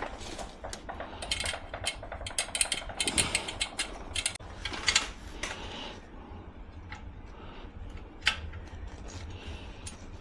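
Hand tools and metal parts clicking and knocking as an exhaust part is worked on: a dense run of irregular clicks for about the first six seconds, then a few scattered clicks over a faint low hum.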